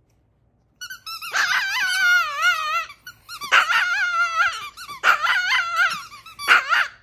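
Long-haired chihuahua howling at squeaky toys. After about a second of quiet come four high-pitched howls, the first the longest, each wobbling up and down in pitch.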